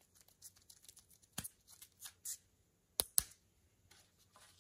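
Hand-handling noise of a sandpaper sheet being pressed onto a small foam hook-and-loop hand-sanding pad: light rustling and scraping of the paper, a knock about a second and a half in, and two sharp taps close together about three seconds in.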